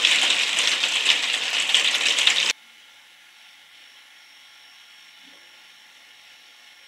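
Steady heavy rain, a dense hiss full of fine patters, that cuts off abruptly about two and a half seconds in, leaving only a faint steady hiss.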